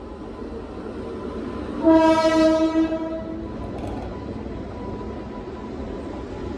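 An Indian Railways locomotive horn sounds one steady blast lasting about a second and a half, starting about two seconds in. Under it runs the rumble of a train moving through the station.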